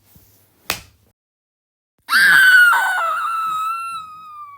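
A short sharp click, then from about two seconds in a loud, high-pitched scream that wavers at first, then slides steadily down in pitch as it fades away.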